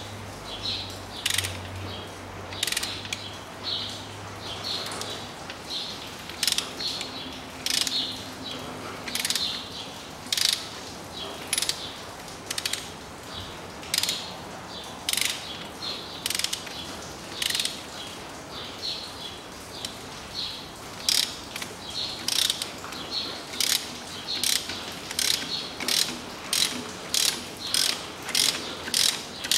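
Ratchet wrench clicking in short strokes as a tight spark plug, sprayed with WD-40, is worked out of a Toyota 2JZ engine. The clicks come about once a second at first and quicken to about two a second near the end.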